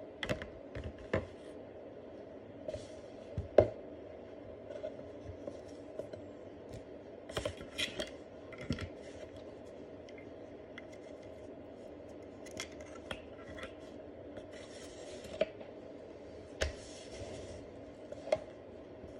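Unpacking and handling noises: scattered clicks and knocks as a plastic IPL hair-removal device, its foam packing and its charger are picked up and set down on a table, the loudest knock about three and a half seconds in. Two short rustles come near the end, over a faint steady hum.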